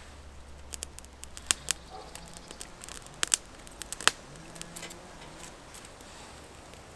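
Sharp, irregular snaps and crackles of thin dry twigs at a small wood campfire as it is fed with sticks, the loudest pops about one and a half, three and four seconds in.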